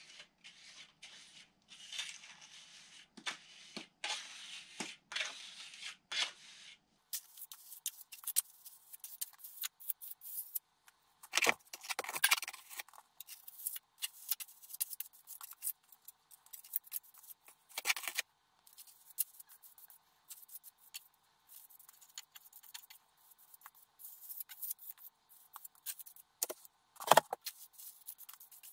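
Japanese plastering trowel scraping render onto a wall in many short, irregular strokes, with a few louder scrapes.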